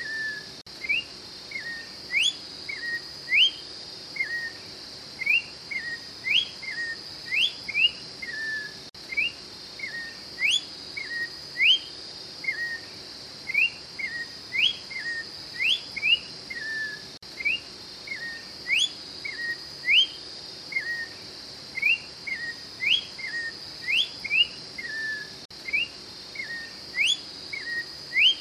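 Orange-backed troupial (Icterus croconotus) singing: clear whistled notes, sharply rising ones alternating with lower slurred ones, repeated in phrases every second or two over a steady high drone.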